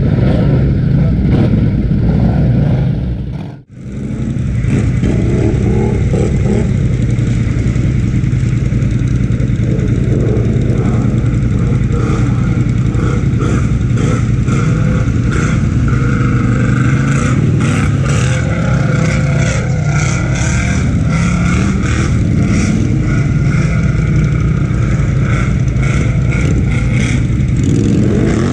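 Polaris Sportsman 1000XP ATV engine running steadily under throttle while the machine wades through deep muddy water. The sound cuts out for a moment about three and a half seconds in.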